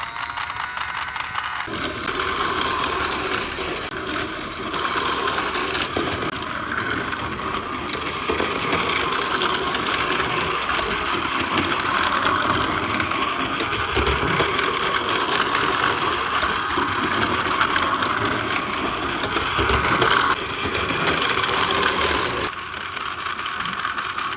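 Battery-powered motorized Percy toy engine running, its small electric motor and gears whirring and rattling steadily.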